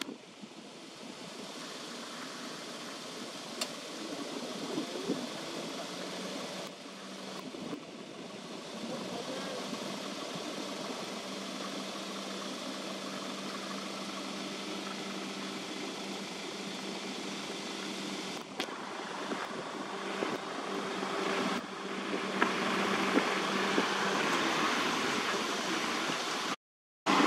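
A low, steady engine hum over a steady background noise, with the noise growing louder near the end.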